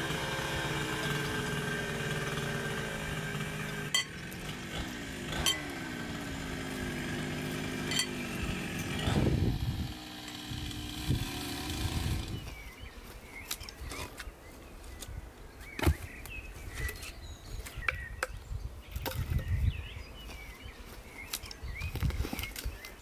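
Chainsaw running for about the first half, its pitch dipping and rising and swelling loudest just before it stops. Then sharp knocks and clicks of branches and logs being handled, with birds chirping.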